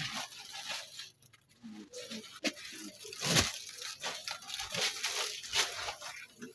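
Close, irregular rustling and crinkling of cloth being handled, with a few short knocks and a louder rustle about three and a half seconds in.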